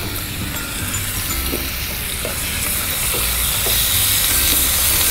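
Pieces of raw chicken breast sizzling in hot oil in a frying pan, the sizzle growing louder as the meat starts to cook.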